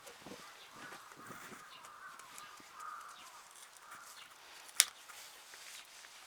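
Crows cawing repeatedly, faint, with one sharp click a little before the end.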